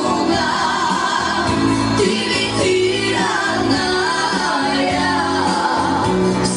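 Song with singing over instrumental backing.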